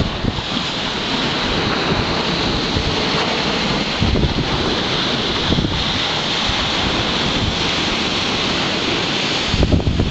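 Sea waves breaking and washing against the foot of a sea wall, a steady surf noise with wind buffeting the microphone in gusts.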